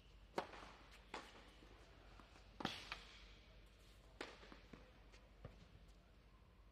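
Scattered sharp knocks of a tennis ball, about half a dozen at uneven intervals, each with a short echo in an indoor tennis hall.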